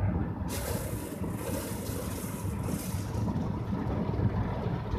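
Rotating tunnel car-wash brushes scrubbing over the car's soapy windows and body, heard from inside the cabin as a steady low rumble. A loud hissing swish of bristles and spray starts about half a second in and dies away after about three seconds.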